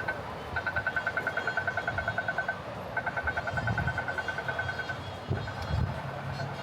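Rapid electronic beeping, about nine beeps a second at one high pitch, coming in runs of about two seconds with short breaks and fading near the end, over the low rumble of city street traffic.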